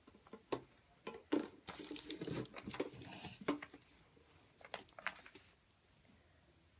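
Small toy props handled close to the microphone: a run of light clicks, taps and crinkling rustles, busiest in the first three and a half seconds, with a few more taps about five seconds in.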